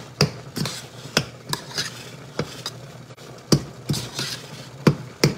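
A spoon stirring a thick cooked corn mixture in a stainless steel pot, knocking and scraping against the pot's sides in a run of irregular clicks, two or three a second.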